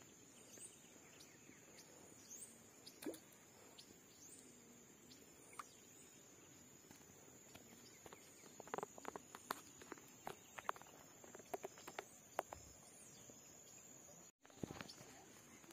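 Near silence: a faint steady high-pitched hiss, with scattered faint clicks and rustles that come thicker in the second half.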